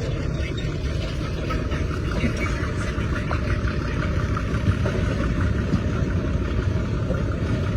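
Train running: a steady rumble with faint, evenly spaced clicking over it.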